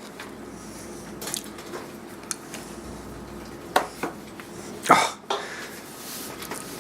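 Broom on a hard kitchen floor being knocked about by a playing puppy: scattered knocks and scrapes, the loudest a sharp knock about five seconds in.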